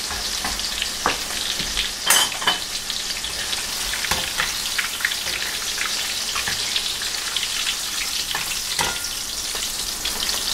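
Hot oil sizzling and crackling steadily in a stainless steel pan as breaded chicken pieces fry. A few sharp metal clicks come from the skimmer against the pan, the loudest about two seconds in.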